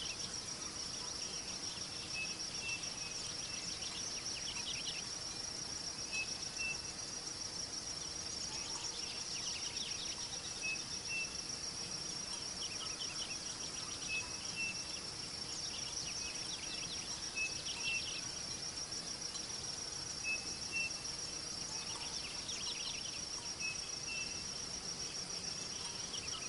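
A chorus of insects, crickets among them: one keeps up a steady, high-pitched trill, while others add short bursts of rapid chirps every few seconds.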